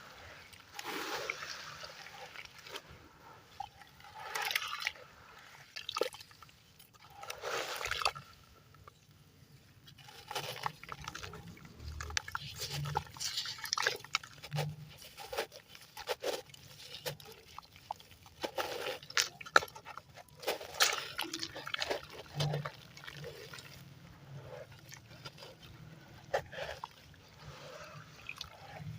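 Lumps of cement and sand-cement being crushed in plenty of water. A few slow wet swells come first, then a long run of gritty crackling and crumbling with sharp clicks.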